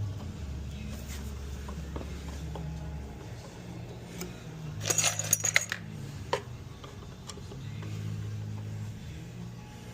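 Small metal pieces clinking and rattling, typical of screws and hinge hardware being handled while a wooden table is taken apart, with a quick run of sharp clinks about five seconds in.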